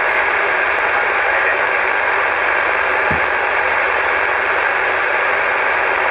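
Steady hiss and static from a CB radio's speaker on an open channel, with nobody transmitting speech.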